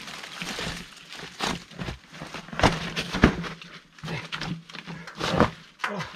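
Mountain bike climbing a wet limestone rock section: tyres scraping and knocking over the loose, rounded stones, with a run of sharp knocks scattered through.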